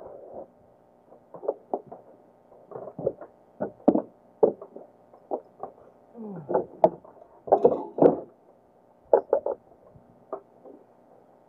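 Irregular knocks and slaps on a small outrigger fishing boat, one or two a second, with a cluster of louder ones in the middle.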